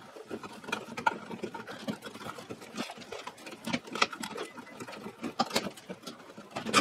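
Irregular scraping, clicking and rustling as hands work electrical wires out through the back of a blue plastic electrical box and ease the box out of its hole in the drywall.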